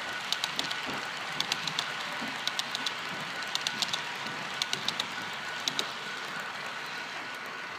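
HO scale model coal hopper cars rolling past on the track, their metal wheels clicking in small irregular clusters over the rail joints above a steady hiss.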